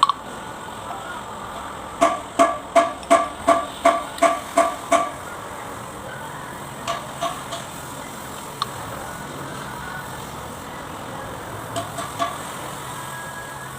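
A hammer tapping on metal: a quick run of about nine ringing strikes, roughly three a second, then a few scattered single taps.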